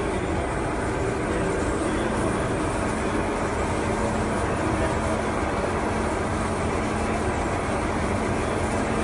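Steady, unbroken rumble of tin ore processing plant machinery running, the wet drum magnetic separator among it, with a faint steady hum for a couple of seconds near the middle.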